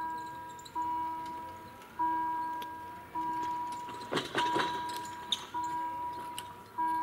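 Level-crossing warning bell striking about once every 1.2 seconds, each strike ringing and fading, as the crossing barriers come down ahead of an approaching train. A short rattling clatter about four seconds in.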